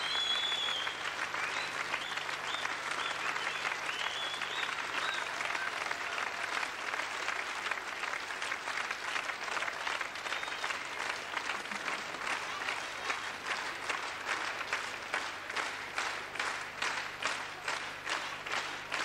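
Theatre audience applauding, with a few shrill whistles in the first few seconds; about halfway through the applause turns into rhythmic clapping in unison, roughly two to three claps a second.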